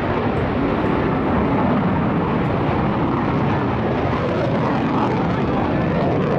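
Mitsubishi F-2 fighter flying a hard pull-up overhead, its single General Electric F110 turbofan giving a loud, steady rush of jet noise.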